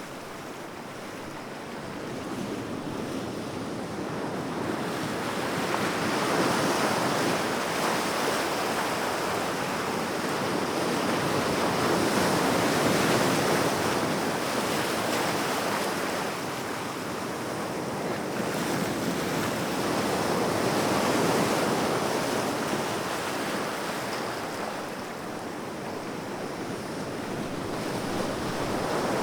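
Sea waves breaking and washing on the shore, a continuous surf rush that swells and ebbs slowly, with a few louder surges spaced several seconds apart.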